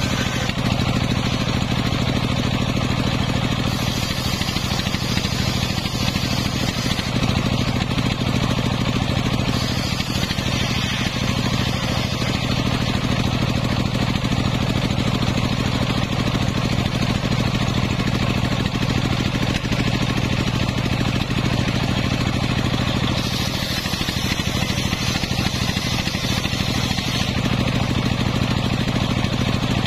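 Homemade belt-driven circular saw bench running steadily on its engine, the blade ripping a wooden board lengthwise with a continuous hiss of cutting. The cutting noise grows and eases a few times as the board is fed through.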